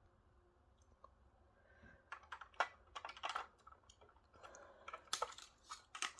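After about two seconds of near silence, a run of small irregular clicks and plastic rattles: a nine-volt battery and its snap connector being handled and reconnected in a smoke alarm.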